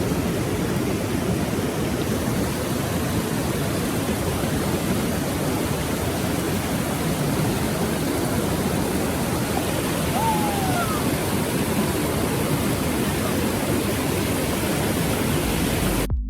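Rapids of the Okavango River at Popa Falls: water rushing steadily over the rocks. It cuts off abruptly just before the end.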